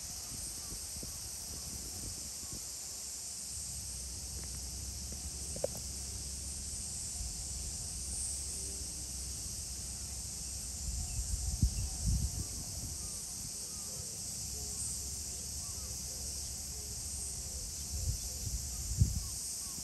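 Steady high-pitched drone of an insect chorus outdoors, with faint short chirps in the background. Low thumps and rumbles come twice, about halfway through and near the end.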